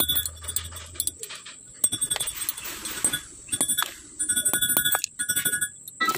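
Tip of a steel twist drill bit dragged across the teeth of a radial drill spindle's gear rack. It makes about five quick runs of metallic clicks, each with a ringing tone.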